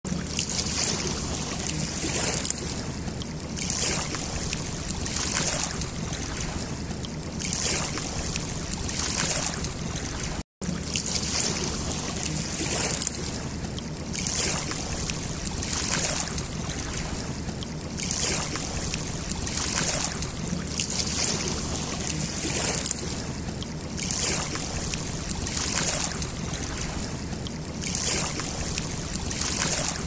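Shallow river water running and rippling, swelling in surges about once a second over a steady low hum. The sound cuts out for an instant about ten seconds in.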